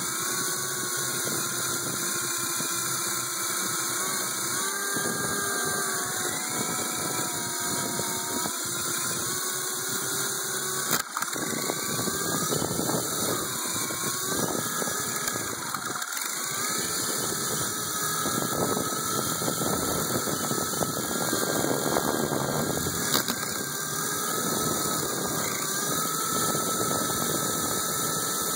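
RC helicopter's motor and rotor running in flight, the pitch of its whine rising and falling as the throttle changes, with a sharp knock about 11 seconds in and a smaller one about 23 seconds in.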